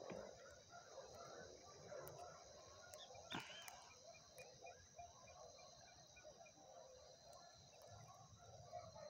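Faint outdoor ambience: distant birds chirping and calling, with one clearer call a little past three seconds in, followed by a quick run of repeated high notes, over a steady high-pitched hiss.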